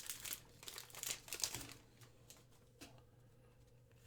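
Crinkling of a trading-card pack's foil wrapper being handled and opened, dense at first and then thinning to a few light clicks.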